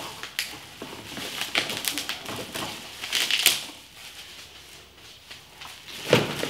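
Plastic packaging crinkling and rustling as a part is handled and unwrapped, in irregular short rustles that are busiest in the first three or so seconds and quieter after.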